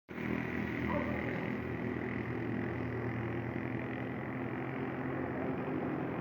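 Jet engines of a Ryanair Boeing 737-800 (CFM56-7B turbofans) running steadily at low power, a steady rumble with a thin high whine above it.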